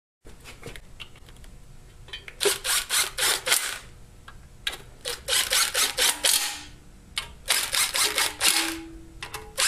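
Hand ratchet wrench clicking in three spells of quick back-and-forth strokes, each a second or two long, as the windage tray bolts are run in.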